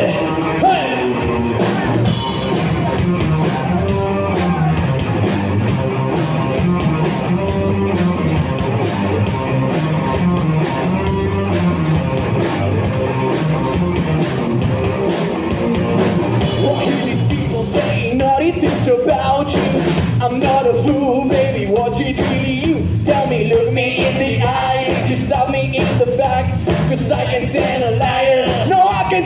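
Live rock band playing a song: electric guitar, electric bass and drum kit, with a singer's voice over them.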